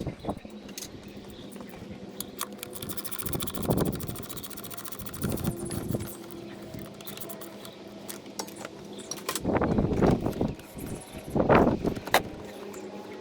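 Metal tools and engine-bay parts clinking and rattling while being handled, with a few louder knocks and rustles, over a faint steady hum.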